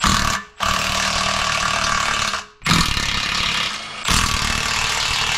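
Cordless Milwaukee impact wrench hammering on subframe bolts through a socket extension, spinning the hardware off. It runs in four bursts of about half a second to two seconds each, with brief breaks between them.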